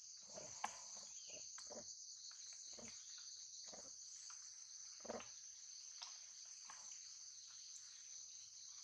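Insects calling in a steady, high, continuous drone, faint under scattered short clicks and rustles, one sharper click near the start.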